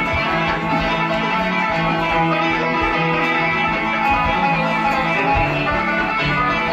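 Ukuleles strummed in a steady, lively rhythm.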